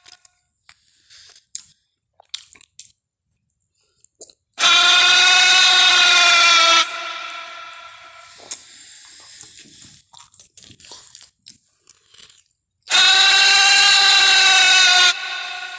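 Tarbosaurus roar sound effect: two loud, clipped, pitched roars of about two seconds each, the first about five seconds in and the second near the end. Each fades away after it, with scattered crackly clicks in between.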